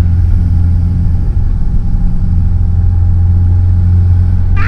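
Light aircraft's piston engine and propeller droning steadily, heard inside the cockpit in flight.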